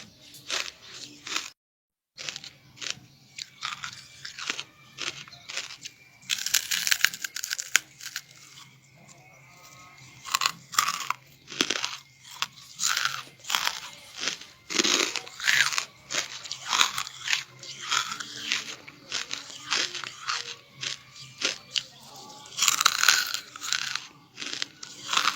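Close-up biting and chewing of crunchy charcoal: a long run of crisp crunches and crackles as pieces are bitten off and chewed. The sound drops out completely for about half a second near the start.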